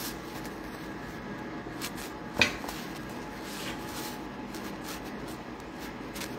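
Steady indoor background hum with a single sharp knock about two and a half seconds in, like something hard set down or tapped against a surface.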